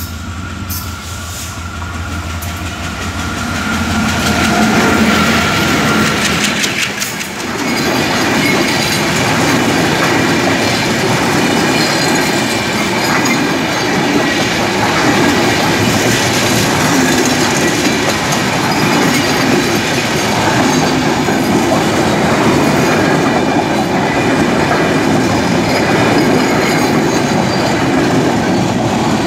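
Diesel-hauled express passenger train running through a station at speed. The locomotive's low engine hum builds as it approaches, and about seven seconds in the locomotive passes. Its sound then gives way to a steady loud clatter of coaches rolling by, wheels clicking over the rail joints.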